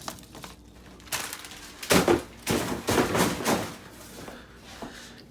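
A quick run of sharp clatters and knocks, about six in two and a half seconds starting about a second in, from handling things in a kitchen.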